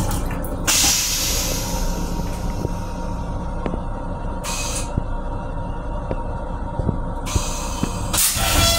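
Train restroom toilet flush cycle: rinse water hisses into the stainless-steel bowl about a second in and fades, a short hiss follows in the middle, and a longer hiss and a burst with a whining tone start near the end. Under it all runs the steady rumble of the moving railcar.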